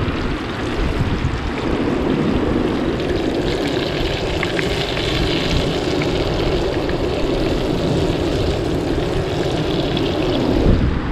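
Floured chicken deep-frying in hot coconut oil in a cast-iron Dutch oven: a steady, vigorous sizzle and bubbling that swells about a second and a half in. Wind rumbles on the microphone underneath.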